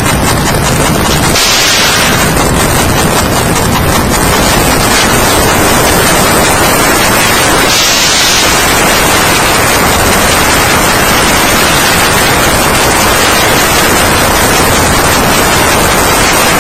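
Loud, steady static hiss covering all pitches, with two short brighter patches of higher hiss, about a second and a half in and again about eight seconds in.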